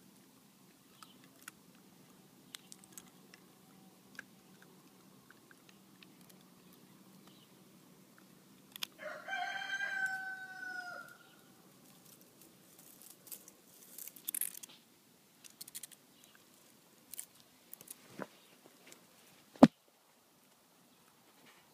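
A rooster crows once, about two seconds long, near the middle. Around it are scattered faint rustles and light clicks, and a single sharp knock comes near the end.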